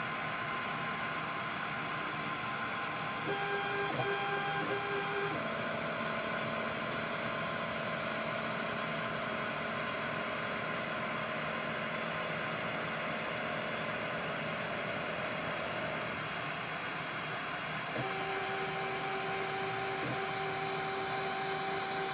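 K8200 3D printer's stepper motors whining in steady tones over a constant hiss. The pitch changes as the toolhead moves: a higher whine from about three to five seconds in, a lower one until about sixteen seconds, and the higher whine again from about eighteen seconds.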